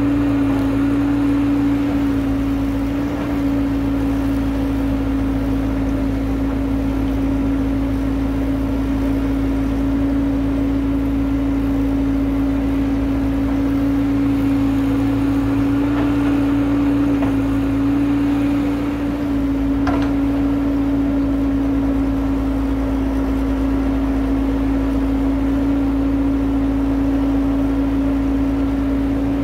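Tracked hydraulic excavator's diesel engine running steadily under load as it digs and loads soil, with a strong steady hum and a few faint knocks.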